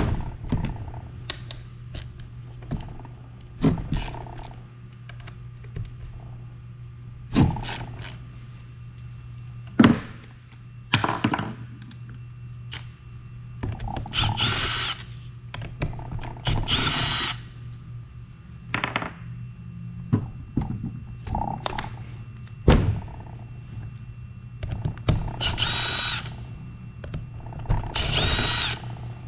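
Power driver spinning out the Allen-head hub bolts of a Onewheel+ XR, running in four short whining bursts of about a second each. Between the bursts come scattered clicks and knocks of the tool and bolts.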